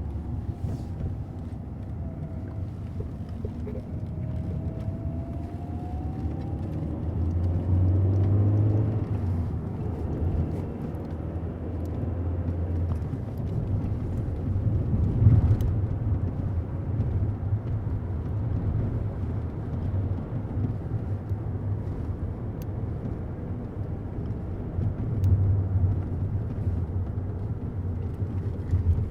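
A car driving, with a steady low engine and road rumble that swells a few times. A rising whine comes in during the first several seconds as it picks up speed.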